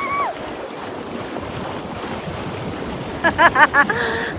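Ocean surf washing in, with wind on the microphone. About three seconds in comes a quick run of a few short high-pitched cries.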